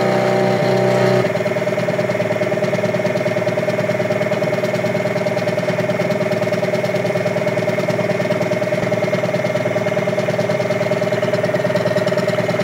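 CNC coil-winding machine running: its spindle turns the coil former while the wire-guide carriage traverses along the lead screw, making a steady mechanical whine. The tone shifts about a second in, then holds even.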